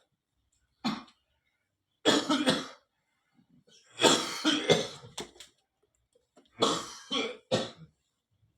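A man with a ten-day cough coughing in fits: one short cough about a second in, then three runs of repeated coughs at about two, four and six and a half seconds in.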